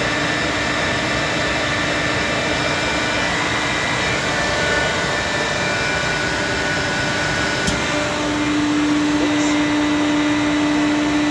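Electric compressor running: a steady mechanical drone with hiss. About two-thirds of the way through there is a single click, and the hum becomes stronger after it.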